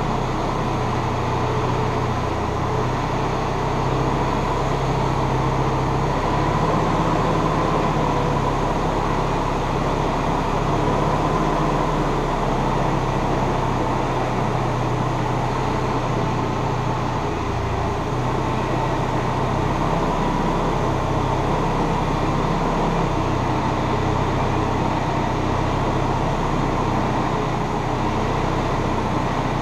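Forklift engine running steadily while its hydraulics raise the mast and forks.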